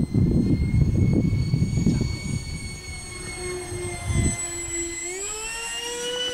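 Electric ducted fan of a radio-controlled A-10 Warthog model jet whining as it flies past; the whine sags slightly, then rises in pitch about five seconds in. Wind buffets the microphone with low rumbles for the first four seconds.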